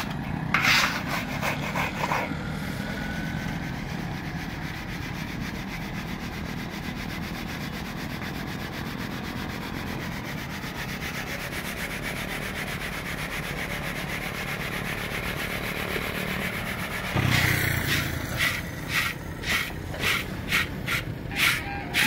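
Roasted chickpeas and hot roasting salt being sieved and shaken over a large metal pan to separate them: a steady grainy rustling, with a few scraping strokes at the start. Near the end comes a louder run of rhythmic rattles as the grams are tossed on a plate.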